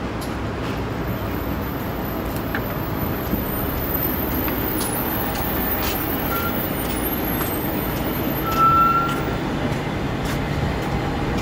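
Steady street traffic noise. About eight and a half seconds in, a brief high squeal, such as a vehicle's brakes, is the loudest moment.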